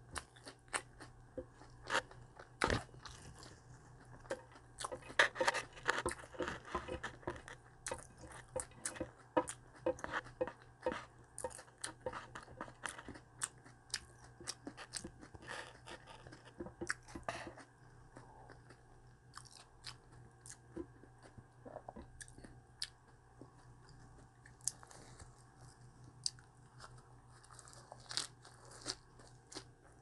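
Close-up chewing and crunching of vegetable wraps and raw vegetables: irregular crisp crunches, densest about five to eight seconds in, over a steady low hum.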